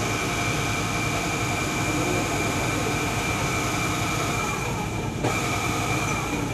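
Steady drone of a large passenger ship's engines and machinery, with a rushing noise over it and a few unchanging tones.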